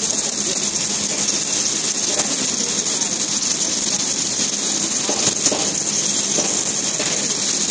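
Submerged arc welding machine running a weld along a steel plate under its flux: a steady hiss.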